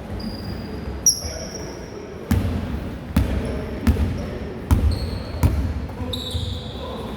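Basketball being dribbled on a gym floor, five bounces about three-quarters of a second apart starting about two seconds in, in a large echoing hall. Short high squeaks, like sneakers on the court, come about a second in and near the end.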